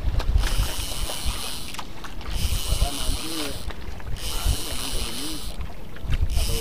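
Conventional fishing reel (Water Killer) being cranked in spells, a high whirring noise that starts and stops about every two seconds, over steady low wind and water rumble.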